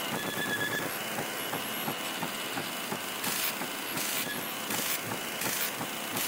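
Produced sound-effect bed under an animated title card: a dense rumbling crackle, with short bursts of hiss recurring about every 0.7 s from about halfway through.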